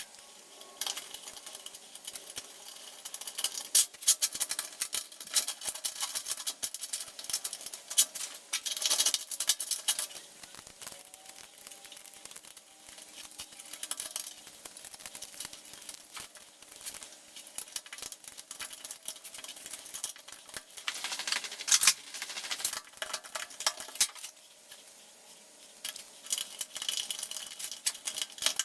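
Small metal parts and hand tools clicking, tapping and scraping as an axle hub is worked on by hand, in irregular clusters with a few quieter pauses.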